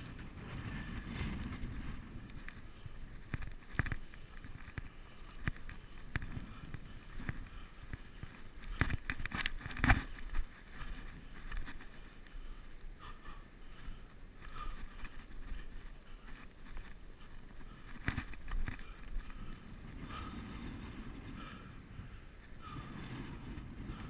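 Wind rumbling on a GoPro microphone, with scattered scrapes and knocks of footsteps and handholds on rock and dry grass as the wearer climbs; the loudest knock comes about ten seconds in.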